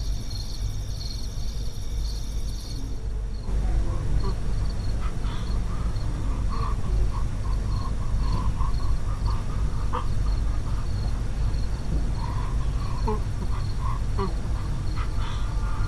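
Night ambience: crickets chirping in a fast pulsing trill over a low steady rumble; from about three seconds in, the rumble grows and irregular short calls come and go.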